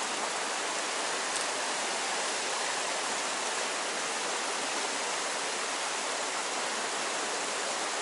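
Mountain stream rushing over a rocky riffle: a steady, even wash of running water.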